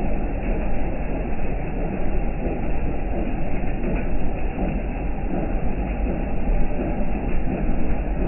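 Rain falling steadily: a loud, even rush with a strong low rumble underneath.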